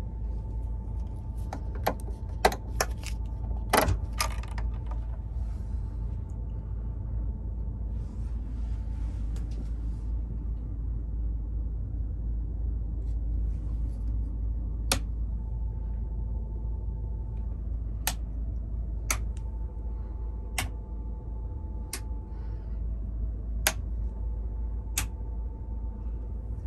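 Rocker light switches on a sleeper cabin's steel switch panel clicking, seven single clicks about one to three seconds apart in the second half. A cluster of sharper clicks and knocks comes a few seconds in. All of it sits over a steady low rumble and a faint steady whine.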